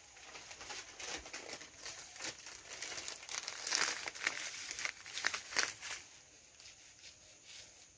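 A plastic salt packet crinkling and rustling in the hands in irregular crackles as table salt is shaken out of it onto dry feed. The crackling is loudest around the middle and dies down near the end.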